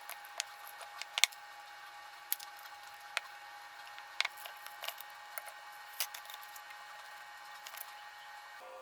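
Irregular light clicks and taps of small objects being handled, a dozen or so, the sharpest about a second in, over a faint steady hum.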